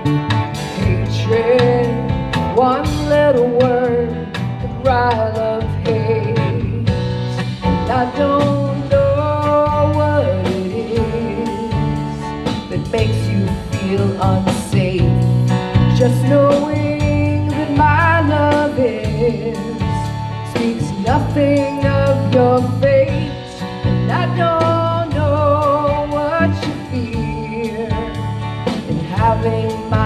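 Live band playing a song: a woman singing over strummed acoustic guitars and a drum kit.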